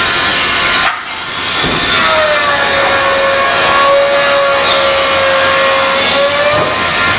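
Woodworking saws and machines running in a pine-processing shop, with a steady saw whine from about two seconds in until near the end.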